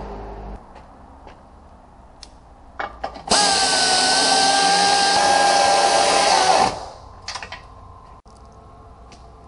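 Air-powered hand tool running steadily for about three seconds, a high whine over hissing air, starting a few seconds in and cutting off suddenly. A few light clicks come just before it starts.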